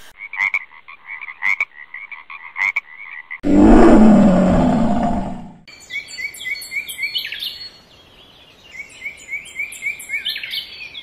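Animal and bird sound clips played one after another. First comes a run of short, repeated croaking calls. About three and a half seconds in, a loud, low animal call lasts about two seconds, and after it many birds chirp and sing in quick high notes.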